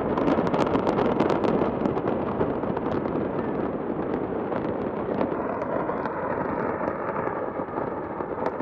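Stored fireworks going off in a fire: a dense, rapid barrage of cracks and pops over a continuous roar, the cracks thinning out after about three seconds.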